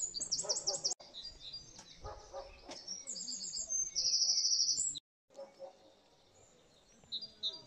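Small songbirds singing: repeated high chirps and quick trills, the loudest a fast high trill lasting about a second, about four seconds in. Faint voices come and go underneath, and the sound cuts out briefly just after five seconds.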